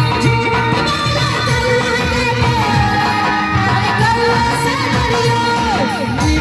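Bollywood-style film song playing loudly: a sung melody with gliding ornamented notes over instrumental backing and a steady low beat.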